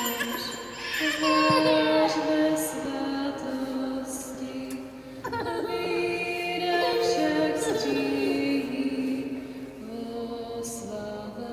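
Church congregation singing a slow Catholic hymn in Czech over sustained chords that move from note to note.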